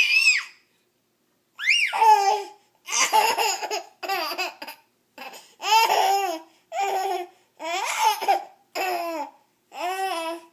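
Baby laughing in a string of short, high-pitched bursts, about one a second, with brief pauses between them.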